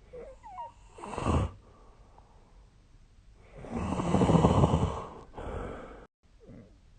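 A sleeping person snoring: a short snore about a second in, then one long loud snore lasting about a second and a half a little past halfway, followed by a shorter, quieter one. Faint squeaky sounds that glide up and down in pitch come at the start and near the end.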